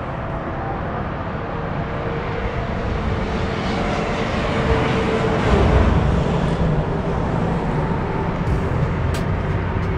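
Steady low rumble of vehicle noise that swells a little about halfway through, with a few faint sharp clicks near the end.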